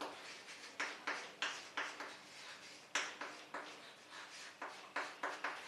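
Short, irregular scratchy strokes of writing or drawing, about two or three a second, each a brief scrape.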